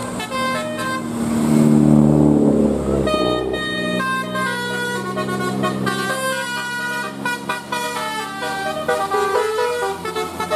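Basuri 'telolet' musical bus horn playing a quick melody of short high notes, one after another. About two seconds in, a louder, deeper tone sounds briefly before the melody goes on.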